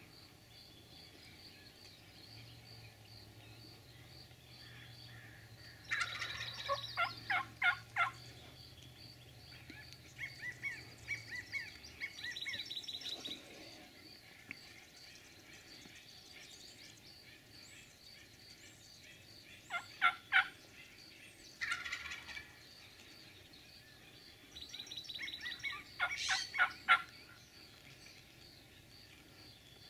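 Wild turkey gobbler gobbling: three loud, rapid rattling gobbles, about six, twenty and twenty-six seconds in, with shorter calls in between.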